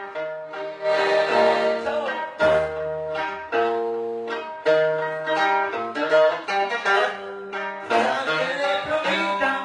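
A band playing music led by plucked string instruments, a melody of held notes moving over a bass line.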